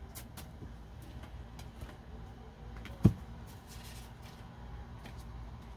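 Faint small taps and rustles of tarot cards being handled over a low steady hum, with one sharp thump about three seconds in.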